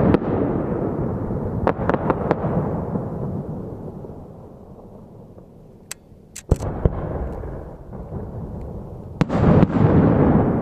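Aerial firework shells bursting. A heavy boom comes right at the start, a cluster of sharp cracks follows around two seconds, more cracks come around six to seven seconds, and another heavy boom hits about nine seconds in, each followed by a long rumbling echo that slowly fades.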